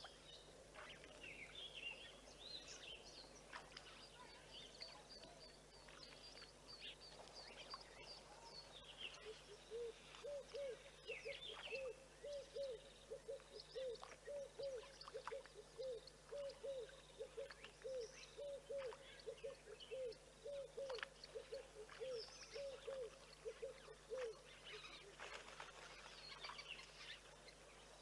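Faint bush birdsong: scattered high chirps and whistles throughout. From about ten seconds in, a long run of short low notes repeats two to three times a second for about fifteen seconds, then stops.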